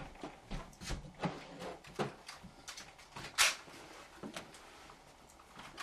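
Scattered small knocks and clicks of someone moving about and handling things in a small room, with one sharper, louder knock about three and a half seconds in.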